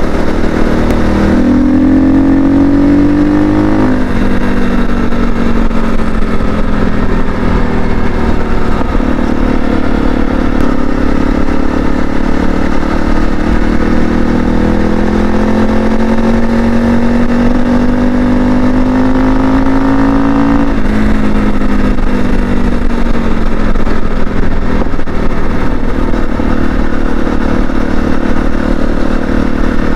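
Single-cylinder 250cc dual-sport motorcycle engine under way. Its pitch climbs and drops at a shift about four seconds in, then rises slowly for some twelve seconds before dropping again at another shift, and runs fairly steady after that. A steady rushing noise lies beneath it.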